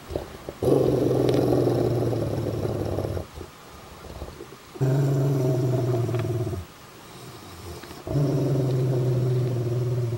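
Rottweiler growling low, three long growls of about two seconds each with short pauses between: a warning while it guards a rabbit's leg from its kill.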